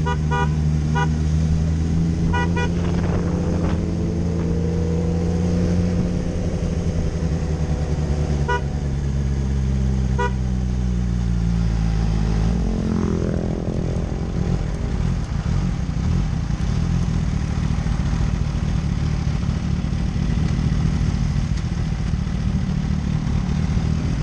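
Kawasaki inline-four sportbike engine running steadily at low revs, easing off after about six seconds, with a few short horn beeps. Around thirteen seconds in another engine revs up past it, and after that mostly wind and road noise remain.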